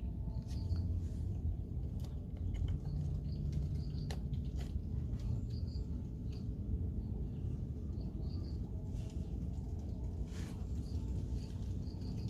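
Yamaha Exciter 135's single-cylinder four-stroke engine idling steadily, with short bird chirps repeating over it.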